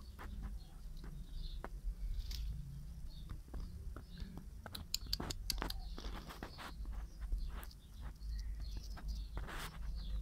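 Outdoor ambience: scattered light clicks and rustles over a steady low rumble.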